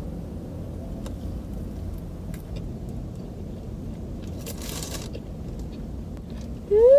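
Steady low rumble of a car running while parked, heard inside the cabin, with faint crunching as a flaky croffle is chewed. Near the end comes a short appreciative "mmm" hum, rising then falling.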